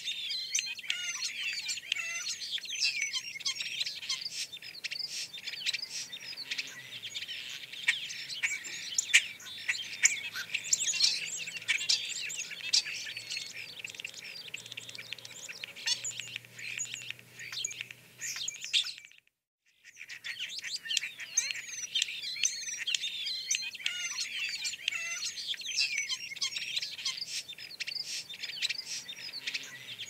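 Several small birds chirping and twittering at once, a dense, busy chorus of short high calls. It cuts out suddenly for about a second just after the middle, then resumes.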